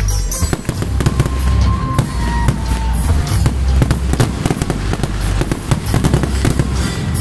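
Aerial firework shells bursting overhead, with many sharp bangs and crackles in quick succession. Music with a heavy bass plays underneath.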